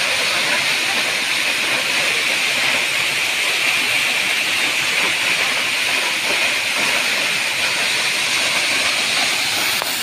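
Waterfall cascading down a rock face onto boulders and a shallow pool: a steady, even rush of falling water that does not change.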